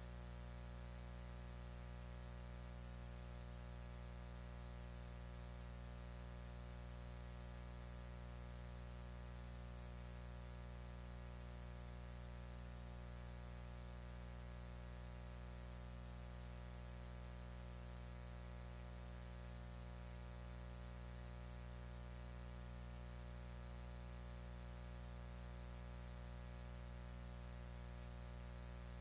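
Faint, steady electrical hum and buzz with no other sound, made of many evenly spaced steady tones over a light hiss. The broadcast audio has cut out, leaving only the hum of the audio line.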